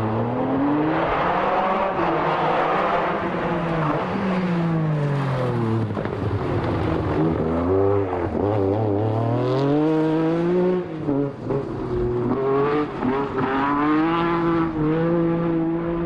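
MG Metro 6R4 Group B rally car's naturally aspirated 3-litre V6 driven hard, its engine note climbing and falling again and again as it accelerates and lifts off. The note sinks for a few seconds in the middle, then climbs back, and there are several short drops in level about eleven to twelve seconds in.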